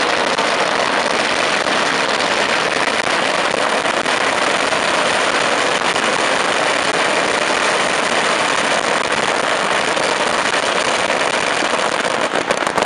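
Micky Fireworks 10,000-cracker garland (ladi) exploding in one unbroken rapid string of bangs that merge into a continuous loud crackle. Near the end it thins into separate bangs as the last crackers go off.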